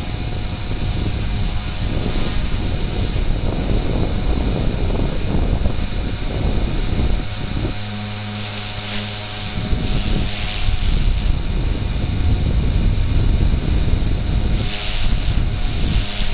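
E-flite Blade mCP X micro RC helicopter in flight, heard from a camera mounted on it: its brushless main motor and tail motors give a steady high whine over heavy rumbling buffeting from the rotor wash on the microphone.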